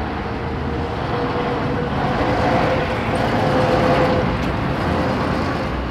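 Road traffic with heavy diesel lorries, a concrete mixer among them, passing close by. The engine and tyre noise swells to its loudest about four seconds in, then eases.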